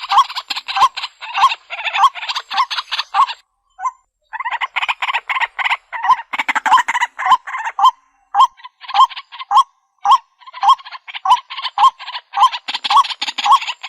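White-breasted waterhen calling: a long run of rapid, repeated croaking notes, two or three a second, with short pauses about four and eight seconds in.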